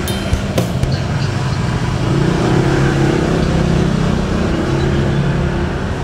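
Boat diesel engines running with a steady low drone that grows stronger about two seconds in.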